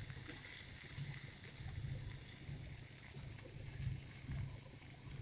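Faint, steady sizzling of water lily stems and shrimp frying in oil in a kadai, the dish nearly cooked.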